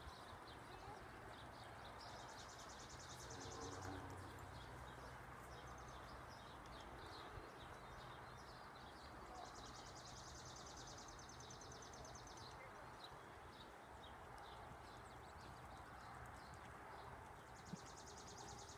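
Quiet open-air ambience with faint hoofbeats of horses moving on sand. A high, fast-pulsing insect trill comes and goes three times.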